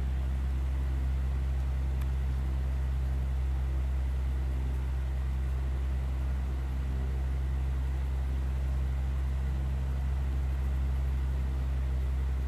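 Steady low drone of a car's engine and road noise heard from inside the cabin, unchanging throughout.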